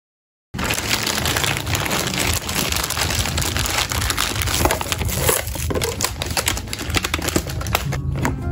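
Thin plastic carrier bag crinkling and rustling as it is handled and opened to take out a takeaway food box, a dense crackle of many small sharp crinkles starting about half a second in.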